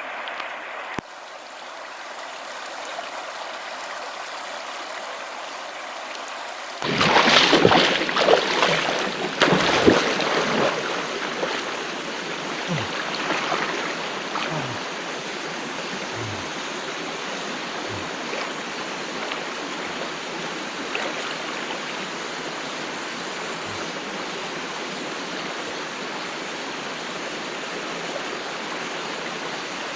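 Mountain stream water rushing, with a burst of louder splashing about seven seconds in that settles back into a steady rush with a few low gurgles.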